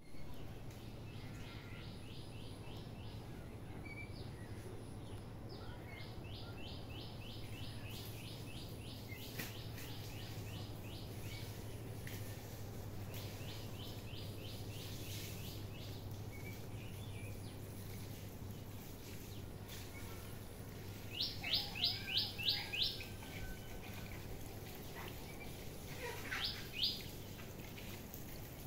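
Bird calling in repeated runs of quick, sharp notes, about five a second, the loudest run about three-quarters of the way through. A steady low hum underneath.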